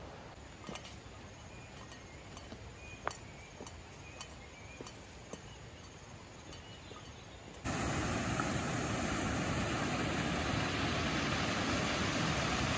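Faint outdoor quiet with scattered light clicks and a few short high tones, then, a little past halfway, a sudden switch to the loud, steady rush of a shallow stream running over rocks.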